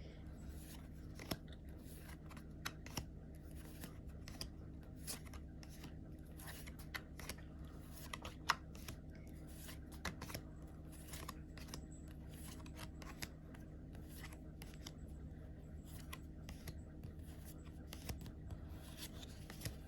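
Lorcana trading cards being handled and moved one after another: a faint, irregular run of small clicks and soft rustles, about one or two a second, over a low steady hum.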